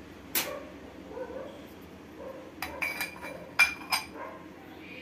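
A ceramic lid is set onto a ceramic mug that has a metal spoon standing in it, giving a sharp clink about half a second in. A quick run of ringing clinks follows between about two and a half and four seconds in as the lid settles.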